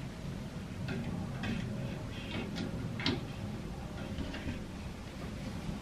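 Clothes hangers clicking and rattling lightly as garments are lifted off hooks: a scatter of small, irregular ticks over a low steady hum.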